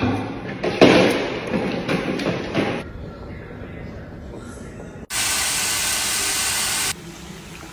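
Chicken pieces frying in a pan: a steady sizzle for about two seconds, starting and stopping suddenly, after a quieter stretch of pasta boiling in a pot. Voices and a few knocks fill the first few seconds.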